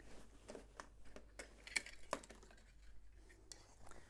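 Light handling noises as an ironed shirt is lifted and put on a coat hanger: a scatter of small clicks and knocks, the sharpest about two seconds in, with soft rustling of cloth.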